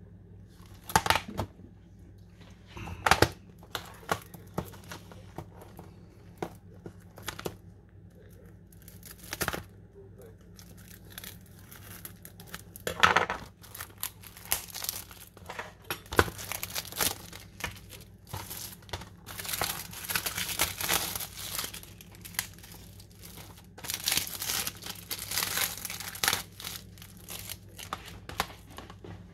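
Plastic shrink-wrap being torn and peeled off a Blu-ray case, crinkling in irregular bursts, mixed with sharp clicks and taps of the hard plastic case being handled.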